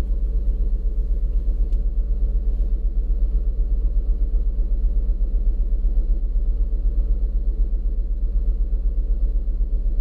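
2007 Lincoln MKZ's 3.5-litre V6 idling at about 940 rpm with a steady low rumble, heard inside the cabin. Cylinder one is misfiring: it shows dead on a power balance test.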